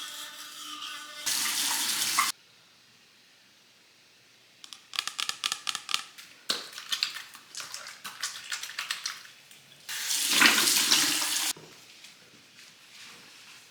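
Water running from a tap into a sink in three separate stretches, each starting and stopping suddenly; the middle one is choppy and the last one is the loudest.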